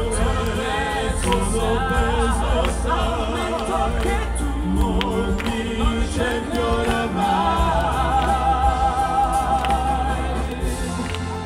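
Pop-opera vocal trio singing live over an amplified band with heavy bass, heard through open-air concert loudspeakers. The voices sing wavering, vibrato-laden phrases and a long held note late on, and the sound eases slightly near the end.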